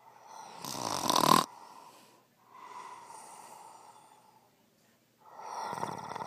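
Heavy snoring: a loud snore with a fluttering rattle about a second in, a quieter long breath after it, and another loud snore starting near the end.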